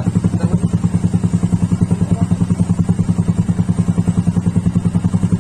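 A Yamaha Soul GT 125 scooter's single-cylinder four-stroke engine idling steadily, with even firing pulses about ten a second.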